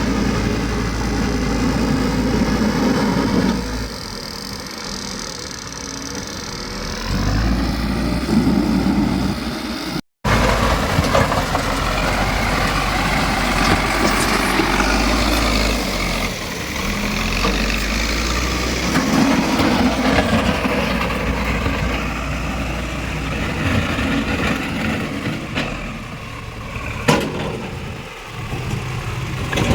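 Diesel engine of a JCB backhoe loader running, its level rising and falling as it works. The sound cuts out for a moment about a third of the way through, and there is a sharp click near the end.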